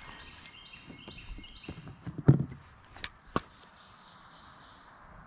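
Handling of metal multi-tool pliers being readied to unhook a small catfish: a thump about two seconds in, then two sharp clicks. Behind it, a steady high insect drone.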